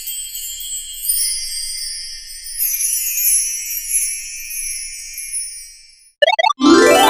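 Magical sparkle sound effect: a dense shimmer of high tinkling bell-like chimes that fades out about six seconds in. Then a quick pair of rising chirps and the start of a loud upward-sweeping glide.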